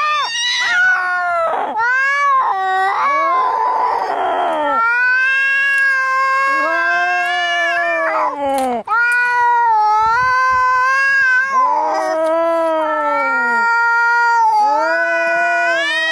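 Domestic cats caterwauling as in a fight: long, wavering, drawn-out yowls one after another with hardly a break, and a harsher, rasping cry about four seconds in.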